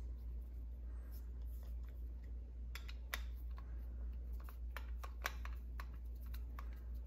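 Scattered light metallic clicks and ticks of a T20 Torx screwdriver working loose the screws of a Stihl chainsaw's M-Tronic control unit, over a steady low hum.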